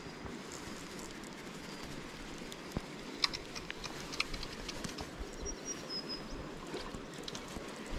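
Quiet creekside ambience: a steady faint hiss with scattered light clicks and ticks, and a brief high whistle a little past halfway.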